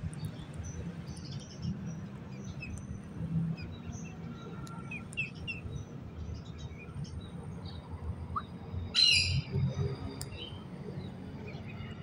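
Birds chirping and tweeting on and off, with one louder, short call about nine seconds in.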